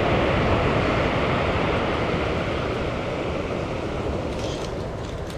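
Surf breaking and washing over a pebble beach: a steady rush of waves that slowly eases off toward the end.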